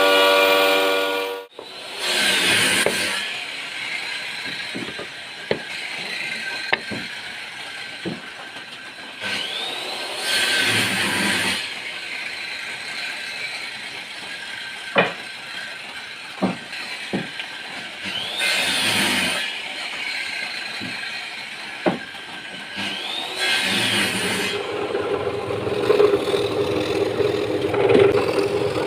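Woodworking drum sander at work: a loud droning hum cuts off about a second and a half in. Then come several short bursts of sanding noise with scattered clicks and knocks, and a steady motor hum returns near the end.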